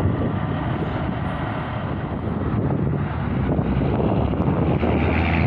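Road traffic passing close by: a heavy truck's engine and tyres rolling past, then a pickup driving by, a steady rumble that grows a little louder near the end.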